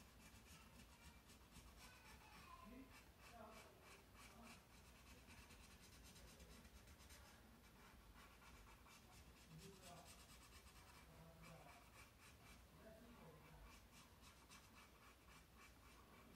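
Faint scratching of a felt-tip marker on sketchbook paper, in many short back-and-forth strokes as an area is coloured in.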